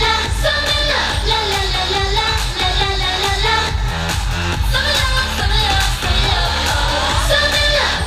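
K-pop dance-pop song with female group vocals over a steady beat, played loud through a stage's loudspeakers.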